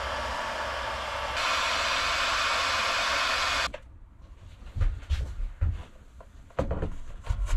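Electric heat gun blowing steadily while shrinking heat-shrink tubing on the wire connections. It gets louder about a second and a half in and switches off abruptly just under four seconds in. After that come a few dull knocks as the wooden electrical panel board is shifted on the workbench.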